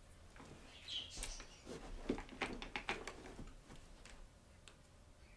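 Plastic felt-tip markers handled in the hand: a quick cluster of light clicks and taps as the pens and their caps knock together while one is picked out.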